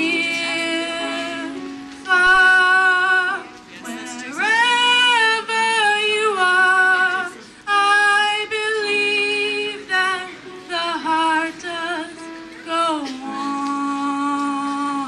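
A female voice singing a song in long held phrases, with a sweeping upward slide into a note about four seconds in.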